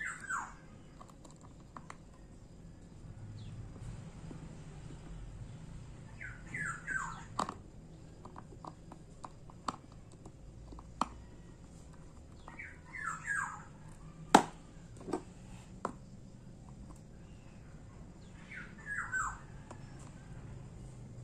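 Small sharp clicks of a watchmaker's screwdriver and tweezers on a Seiko 6309 automatic movement, the loudest about two-thirds of the way through. A bird calls in short groups of falling chirps about every six seconds.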